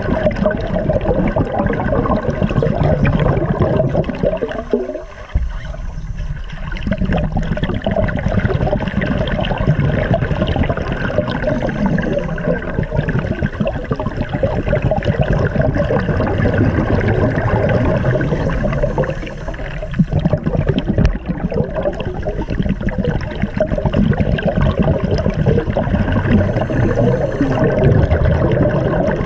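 Divers' exhaled air bubbles rushing and gurgling, heard through an underwater camera's microphone as a continuous muffled bubbling that eases off briefly about five seconds in.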